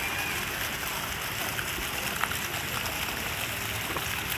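Small fountain jets spraying up and splashing steadily into a shallow decorative pool.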